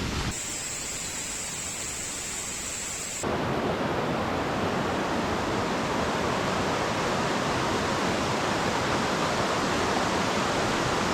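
Steady rushing of creek water. About three seconds in the sound changes abruptly and becomes fuller and louder.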